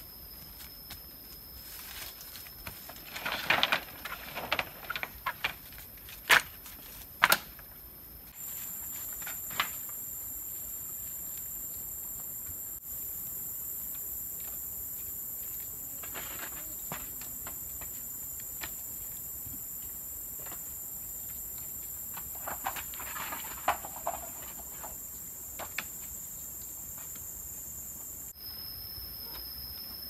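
Steady high-pitched insect chorus, its pitch jumping abruptly at edits, with scattered rustling and sharp knocks from the builder moving about and handling bamboo: a cluster a few seconds in and another past the middle.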